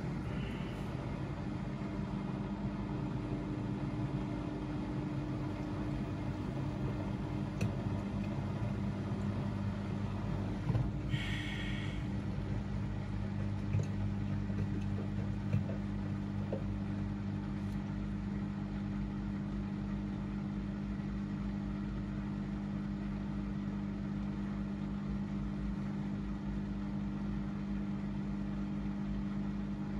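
Washing machines running a wash cycle: a steady motor hum, with a brief higher-pitched sound about eleven seconds in and a few faint knocks.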